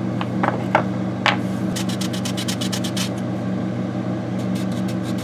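A few light knocks as small lure-body pieces are handled on a workbench, then a fast run of short scratchy strokes, about ten a second, as sandpaper is rubbed over one piece, with a few more scattered strokes near the end. A steady machine hum runs underneath.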